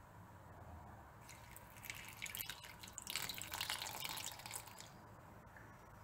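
Water poured from a small bowl into a ceramic plate around two halved ears of waxy corn, splashing and trickling for about four seconds, starting about a second in.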